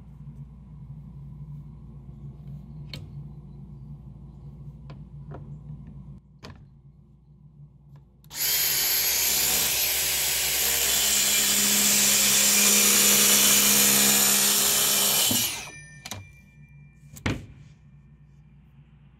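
DeWalt track saw cutting along its guide rail through a sheet panel. It runs for about seven seconds, growing slightly louder through the cut, then cuts off sharply and winds down. A few light clicks come before the cut and a single knock comes after it.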